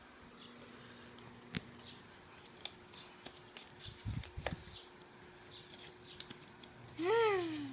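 Quiet room with a few light taps and clicks, then near the end a short baby's squeal that rises and then falls in pitch.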